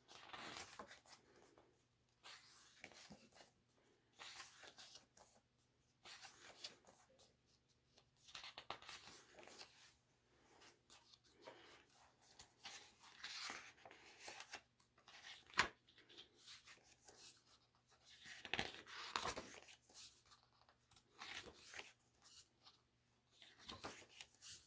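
Pages of a softcover photo book turned by hand: faint paper swishes and rustles every few seconds, with one sharp click about two-thirds of the way through.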